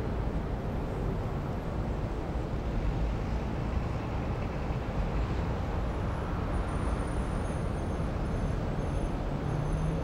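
City ambience: a steady low rumble of distant traffic. In the second half, faint thin high tones come and go.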